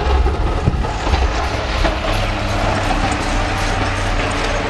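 Snowplow truck driving past, its heavy engine giving a steady low rumble, under a broad hiss of blizzard wind.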